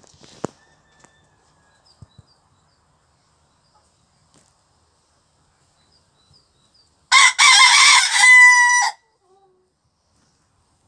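A rooster crowing once, about two seconds long, beginning about seven seconds in and ending on a held steady note. A few light knocks come near the start.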